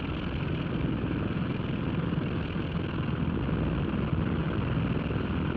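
Steady drone of an airship's propeller engines, a low rumble under an even hiss.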